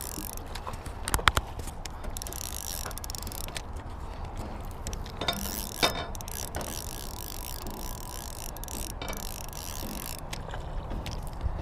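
Spinning fishing reel being cranked to bring in a hooked trout, its gears and ratchet clicking steadily. A few sharper clicks stand out, two about a second in and one near the middle.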